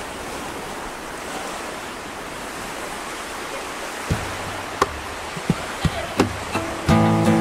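Steady wash of ocean surf. A handful of sharp clicks come in the second half, and acoustic guitar music starts near the end.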